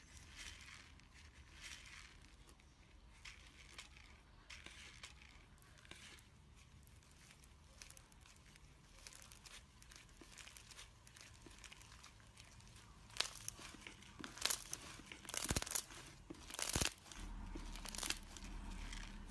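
Slime being squeezed and worked by hand, giving soft crackles and small pops, with sharper, louder pops in the last several seconds.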